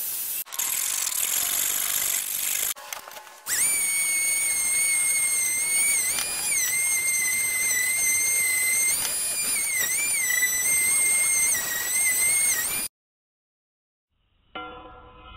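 An electric power tool, used in knife making, works the metal. First there is a hissing rush with short breaks. Then a high, steady motor whine runs over a hiss, and its pitch dips briefly a few times as the tool is loaded. It cuts off abruptly near the end.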